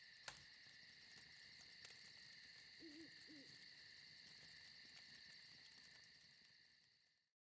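Faint night ambience: insects trill steadily, and an owl hoots twice about three seconds in. There is one sharp click near the start, and the whole bed fades out just before the end.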